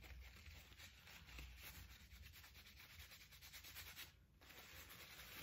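Makeup brush scrubbed rapidly back and forth in a napkin damp with micellar water: a faint, fast scratchy rubbing that pauses briefly about four seconds in.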